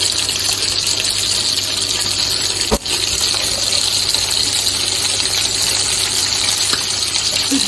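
Pork pieces and freshly added sliced onions sizzling in oil in a frying pan, a steady hiss while they are stirred with a spatula.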